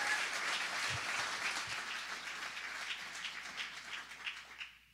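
Audience applauding, dying away to a few scattered claps and stopping near the end.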